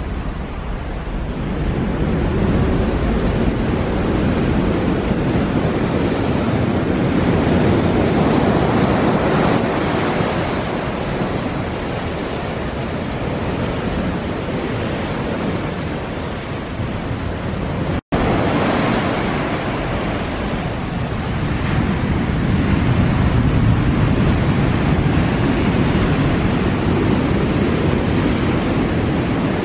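Ocean surf breaking over rocks and washing up the beach: a loud, steady rush that swells and eases every several seconds. It cuts out for an instant a little past halfway.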